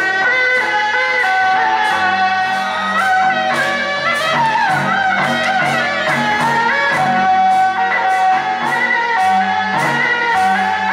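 Suona (Chinese double-reed shawm) playing a wavering, ornamented melody over a steady percussion beat: traditional Taiwanese temple procession music.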